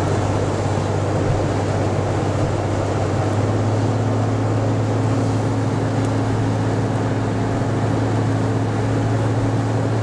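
Inside a Pontiac Grand Prix driving on a rain-soaked highway: a steady rush of tyres and rain spray heard from the cabin, over a constant low engine drone.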